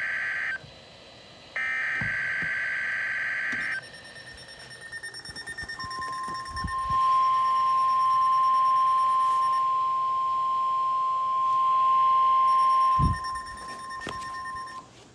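NOAA Weather Radio broadcast opening a test. First come two bursts of buzzy, screechy digital EAS/SAME header data in the first four seconds. About six seconds in, the steady 1050 Hz weather alert tone starts and holds for about nine seconds, then cuts off.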